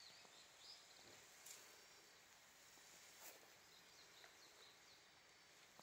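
Faint birdsong in a quiet garden: a few short chirps from small birds near the start and again past the middle, over a low steady hiss, with a couple of faint ticks.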